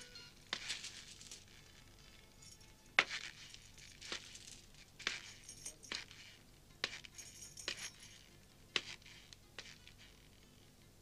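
Faint metallic jingling and clinking of worn jewelry: about ten light, bright clinks at uneven spacing, roughly one a second, some with a short ring.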